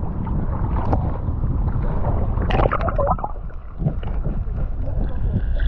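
Muffled sea-water sloshing and rumbling on an action camera's microphone as it goes from the surface to under the water, with a brief splash about two and a half seconds in.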